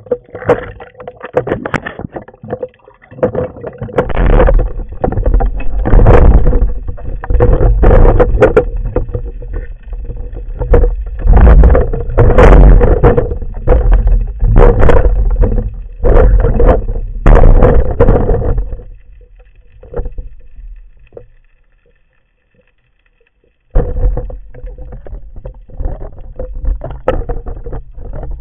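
Water rushing and sloshing against an underwater camera housing as a spearfisher swims and dives, in loud surges every second or two over a faint steady hum. It drops out for about two seconds, then comes back quieter.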